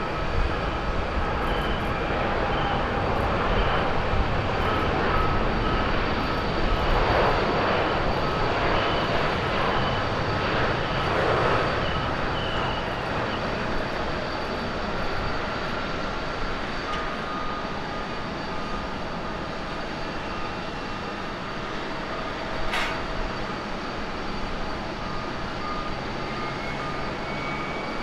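Boeing 787-8 Dreamliner's Rolls-Royce Trent 1000 jet engines at takeoff power as it rolls, lifts off and climbs away. The roar is loudest around 4 to 12 seconds in and slowly fades after that. A single sharp click sounds about 23 seconds in.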